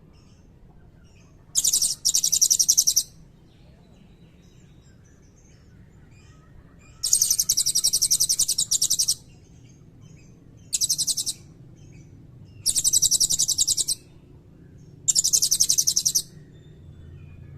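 Blue-crowned hanging parrot (serindit) singing in rapid high-pitched trilled bursts, five bursts of one to two seconds each with short pauses between.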